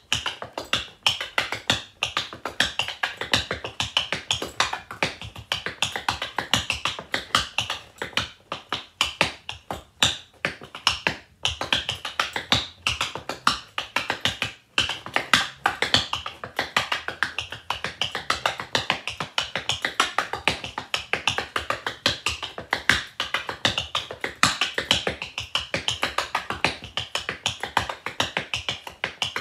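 Rhythm tap dancing: the metal taps of tap shoes striking a wooden board in fast, continuous rhythmic strikes, with short breaks about a third and halfway through.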